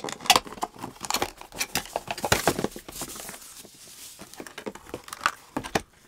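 Unboxing handling noise: a white cardboard inner box is flipped open, its flaps scraping and knocking, and a wrapped packet rustles and crinkles as it is pulled out, in quick irregular bursts.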